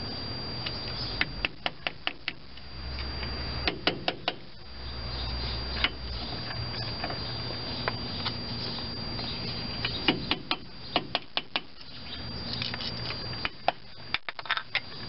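Screwdriver and pliers clicking and tapping against a front-hub grease cap as it is pried loose. The sharp metal clicks come in clusters: about a second in, around four seconds, and again from about ten to fourteen seconds.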